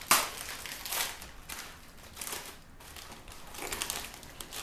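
Bag of bean and rice chips being opened and handled: a sharp crackling rip right at the start, then bursts of crinkling and rustling of the bag.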